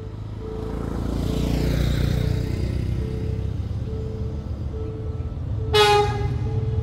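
Diesel locomotive approaching, its engine rumble growing, with one short, loud horn blast about six seconds in. A short repeating beep, about one and a half a second, sounds throughout.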